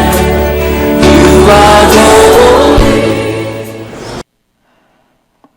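Choral worship music with singing voices over instruments, fading and then cutting off abruptly about four seconds in, followed by near silence with one faint click near the end.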